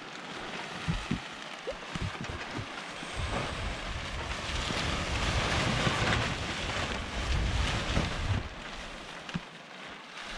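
Spinnaker sailcloth rustling and flapping as it is hauled by hand to unwrap it from the furled genoa, with wind buffeting the microphone; loudest in the middle, with many dull thumps.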